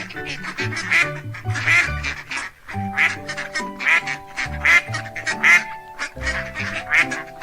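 Duck quacking repeatedly, short rough calls about once or twice a second, over background music with a steady bass line.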